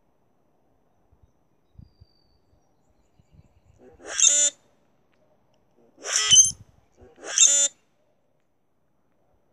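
Common grackle giving its short, harsh, squeaky song three times, each phrase about half a second long, as a male displays.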